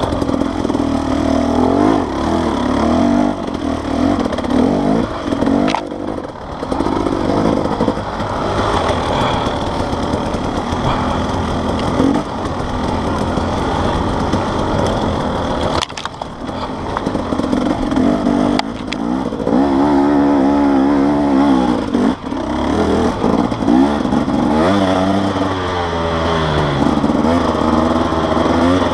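Enduro dirt bike's engine heard from on the bike as it is ridden along a forest singletrack, the revs rising and falling constantly with the throttle. A few sharp knocks cut through, about 6, 12 and 16 seconds in.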